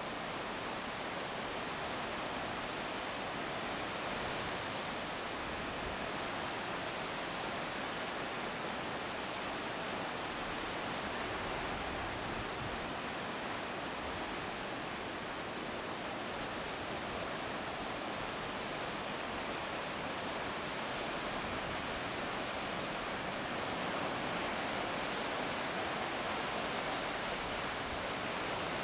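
Sea waves breaking on rocks at the foot of a cliff, heard from above as a steady, even wash of noise.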